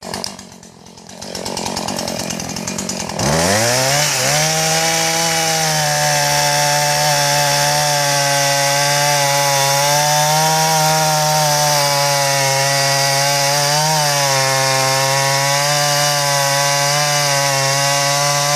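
Chainsaw running low for about three seconds, then revved up sharply and held at high, nearly steady revs with slight dips while cutting through a tree trunk.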